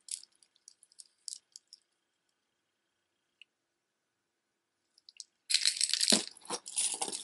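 Wooden beads of a stretch necklace clicking softly against each other as they are handled, then a louder, dense clatter and rustle near the end as the jewelry is moved.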